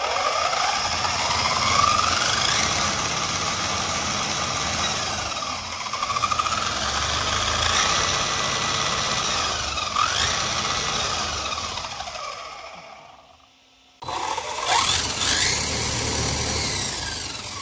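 Brushless motor and drivetrain of an HPI Jumpshot SC running on a 2S battery, wheels spinning free, with the stock 48-pitch pinion and spur gears whining. The pitch rises and falls several times with the throttle before dying away. After a sudden break the car runs again with a 32-pitch gear set, which is smoother.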